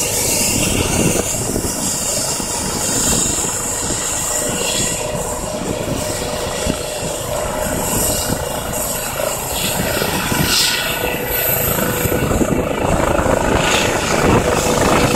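Eurocopter EC135 P2+ twin-turbine helicopter running on the ground, its turbines and rotor making a steady sound with a tone running through it. It grows louder over the last couple of seconds as power comes up for lift-off.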